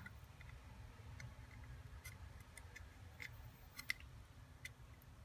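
Faint, irregular small clicks and ticks of plastic cable connectors and wires being handled over an LCD screen tester board.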